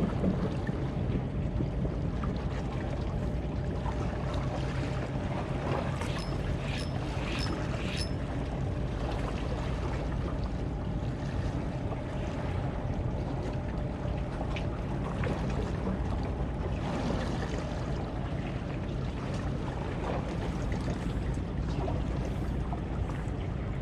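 A boat's engine running steadily with an even low hum, over wind and water noise. About six seconds in come four short, evenly spaced high-pitched ticks.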